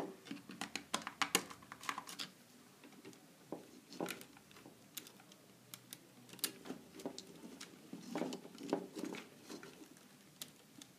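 Faint, irregular clicks and taps of hand wiring work: a wire being handled and fastened into a screw terminal of a contactor. The clicks come in small clusters, thickest in the first two seconds.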